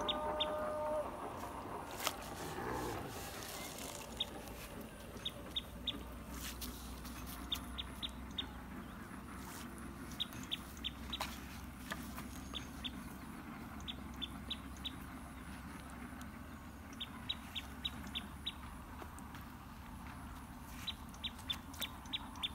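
Outdoor birdsong: a small bird gives short, high chirps in quick runs of three to five, repeated every second or two, with a brief lower call at the very start.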